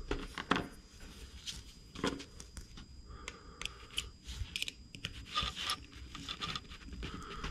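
Hand work on a small nitro engine's clutch resting on a paper shop towel: irregular light clicks and scrapes of small metal parts, with crinkling of the towel as the engine is shifted and turned.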